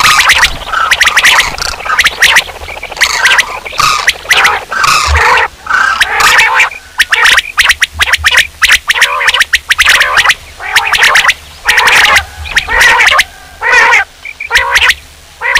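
Common quail calling from a recording made to lure quail: a dense run of loud, quick calls that repeat with only short gaps between them.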